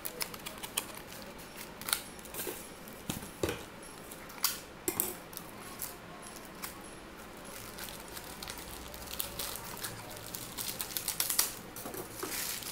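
Handling noise as a keyboard's boxed power adapter and its packaging are taken out: scattered sharp clicks and light clatter, with a quick run of clicks near the end.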